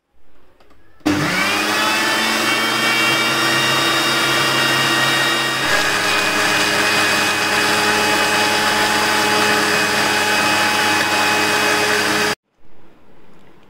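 Electric mixer grinder blending watermelon chunks with ice cubes. Its motor starts about a second in, quickly rises in pitch to a steady whine, and shifts in tone partway through as the jar's contents turn to smooth juice. It cuts off suddenly near the end.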